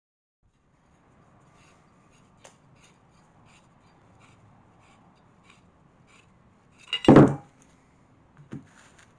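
Metal tools being handled on a workbench: light ticks and taps, then one loud metallic clank about seven seconds in and a smaller knock a second and a half later.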